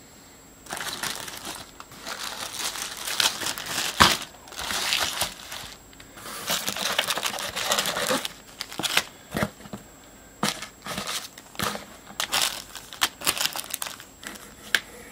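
Plastic bags crinkling and a cardboard box rustling as hands rummage through a parcel of small bagged parts: a dense stretch of crinkling for the first half, then shorter separate rustles. A sharp click about four seconds in.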